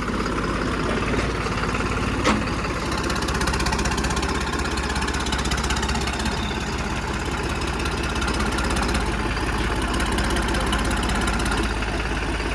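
A tractor's diesel engine running steadily, with one sharp click a little over two seconds in.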